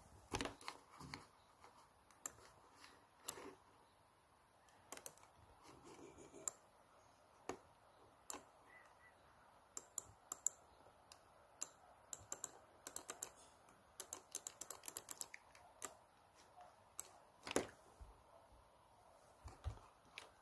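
Fingertips tapping on an ASUS laptop's screen and casing: light, irregular clicks, with a quick run of taps about two-thirds of the way through and a duller knock or two near the end.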